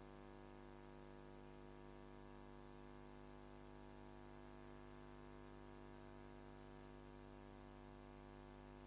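Near silence: a faint, steady electrical hum with a thin high whine, unchanging throughout.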